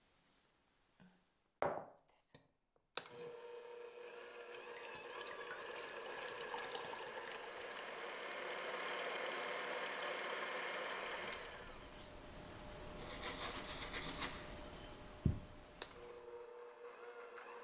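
Electric hand mixer whipping egg whites in a glass bowl, its motor starting about three seconds in after a couple of knocks and then running steadily with a constant hum. A sharp click near the end as the mixer's speed switch is pressed.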